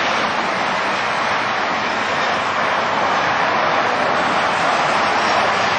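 United Express Embraer E-Jet regional jet on final approach with gear down, its twin turbofan engines making a steady rushing jet noise that grows a little louder as it nears.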